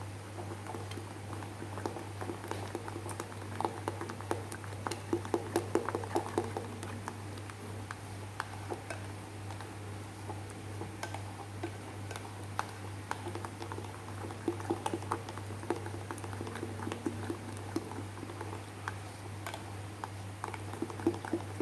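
Thick batter of frying flour, water and egg being beaten in a bowl: wet squishing with irregular clicks of the utensil against the bowl, coming in busy spells.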